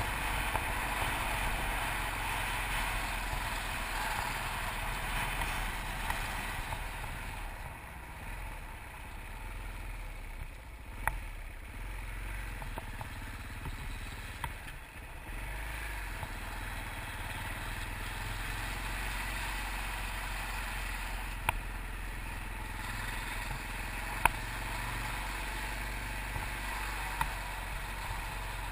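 Yamaha TT600RE's single-cylinder four-stroke engine running at low road speed, with wind rush over the camera. The wind rush thins for several seconds about a third of the way in. A few sharp clicks stand out.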